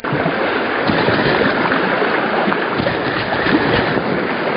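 Steady wash of sea waves against shore rocks.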